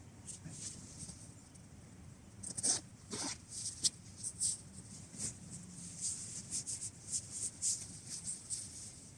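Nylon bivouac tent fabric rustling and scraping as a person opens the door and crawls out, in a run of short scratchy strokes that grow busier about two and a half seconds in, the door zip being pulled open then.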